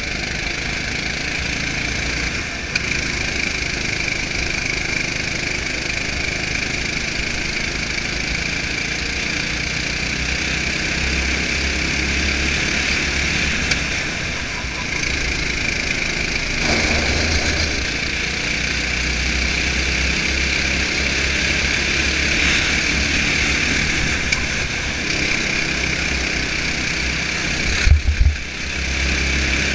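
Go-kart engine running at speed, heard from on board the kart: a steady drone that eases off briefly a couple of times. About 28 seconds in, two sharp thumps as the kart rides over a kerb.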